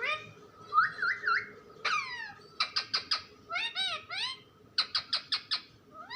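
Pet parrot calling and chattering: a string of short pitched chirps and squawks with quick pitch sweeps, including two runs of rapid short notes in the second half.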